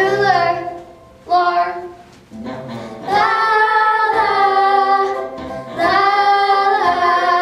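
A young girl singing a show tune, holding long notes about three seconds in and again near the end.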